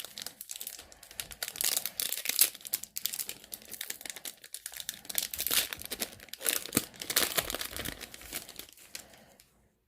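Plastic foil wrapper of a retail trading-card pack being crinkled and torn open, a dense irregular crackling that dies away near the end.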